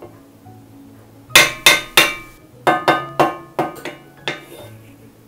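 Wooden spatula knocked sharply against a cast-iron skillet about ten times, in quick knocks starting about a second in, to shake off clinging vegetable shortening.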